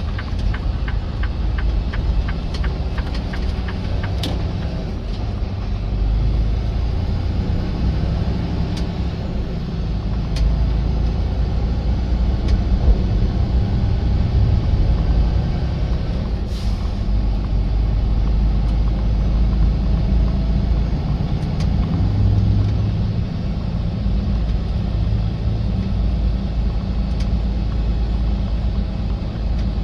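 Semi truck's diesel engine running with a steady low rumble. Rapid ticking in the first few seconds, and a short hiss about 17 seconds in.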